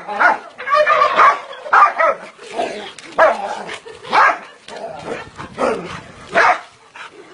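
Dog barking repeatedly in short, uneven barks, about one or two a second.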